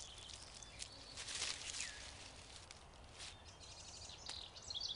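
Faint rustling and snapping of leafy berry bushes as a black bear feeds, with a burst of quick bird chirps and falling whistled notes near the end.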